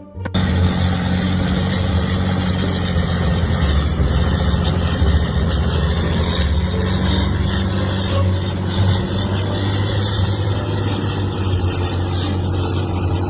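A large engine running steadily with a low hum and a hiss over it, cutting in abruptly at the start.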